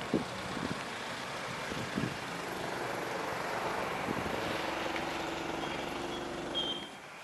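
Outdoor background noise with a distant engine running; a steady hum comes in about two and a half seconds in, and the noise drops suddenly near the end.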